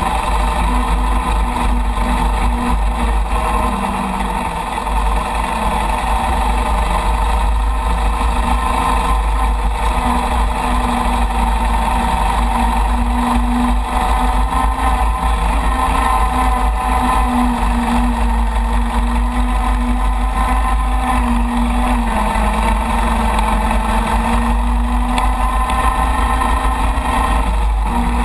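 Chang Jiang 750 sidecar motorcycle's side-valve flat-twin engine running steadily under way, its speed rising and falling a little. Heavy wind rumble on the microphone runs underneath.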